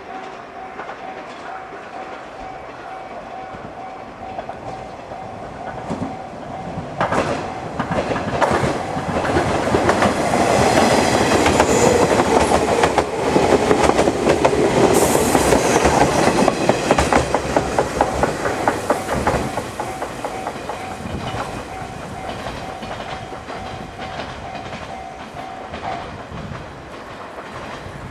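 JR West limited express Kinosaki electric train passing at speed, its wheels clacking over the rail joints, loudest from about ten to seventeen seconds in and then fading. A level-crossing alarm rings steadily throughout and stops about two seconds before the end.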